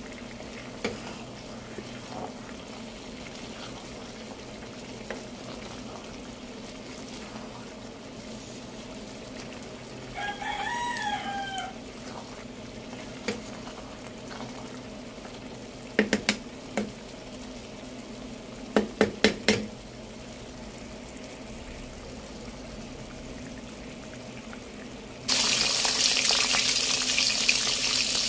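Quiet kitchen background with a rooster crowing once, about ten seconds in, and a wooden spatula knocking against the pan a few times while a coconut-milk vegetable stew is stirred. Near the end, loud steady sizzling of whole fish frying in hot oil starts abruptly.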